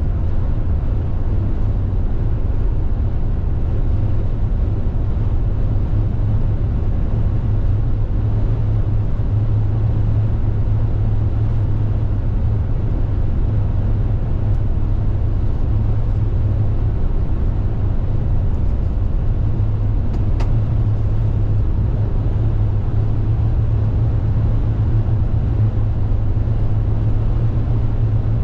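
Steady low rumble of a car being driven, the tyre and engine noise of the moving vehicle with no change in pace.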